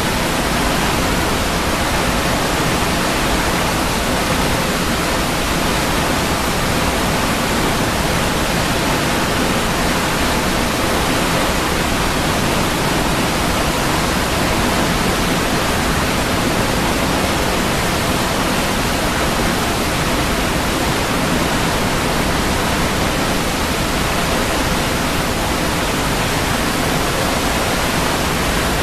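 Waterfall: a steady, unbroken rush of falling water, even across low and high pitches, with no change in level.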